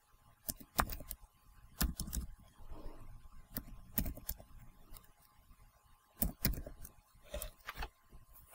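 Computer keyboard typing: a dozen or so separate keystroke clicks at an uneven, slow pace.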